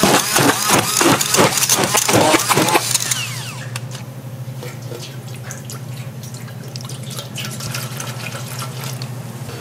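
Wet kitchen food-preparation sounds: loud rhythmic squelching strokes, about four a second, for the first three seconds. Then quieter handling with scattered small clicks over a steady low hum.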